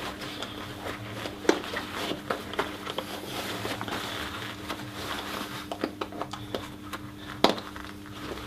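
Buckles clicking and webbing straps rustling as a tactical vest's side cummerbund and belt are fastened on the wearer, with a sharp click about a second and a half in and a louder one near the end, over a steady low hum.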